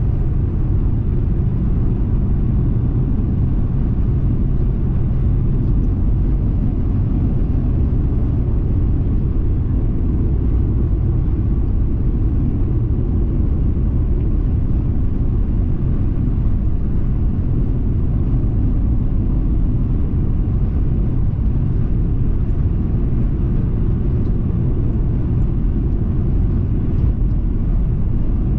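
Steady low road rumble of a car cruising at highway speed, tyre and engine noise heard from inside the cabin.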